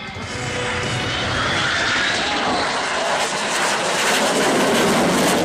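Fixed-wing airplane flying past, its engine roar building steadily and loudest near the end.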